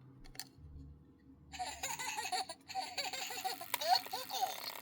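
Tickle Me Ernie toy's electronic laugh playing through its newly wired replacement speaker, starting about a second and a half in: rapid, wavering giggling with a buzzy edge. This shows the toy's sound now works.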